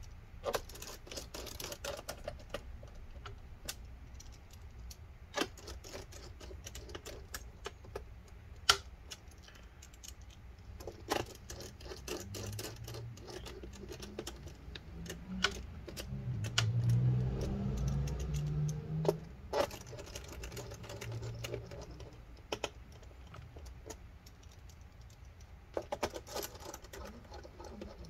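Small screws and a precision screwdriver clicking and tapping on a plastic laptop bottom case as the screws are put back, with scattered light clicks and a low handling rub midway.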